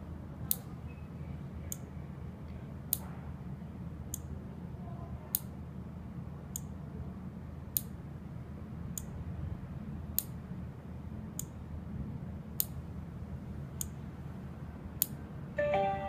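Short, high electronic ticks from the alarm equipment in wireless pairing mode, evenly repeated about once every 1.2 seconds, over a steady low hum.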